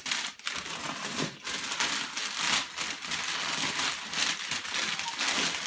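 Crumpled wrapping rustling and crinkling continuously as hands dig in a cardboard box and unwrap an item.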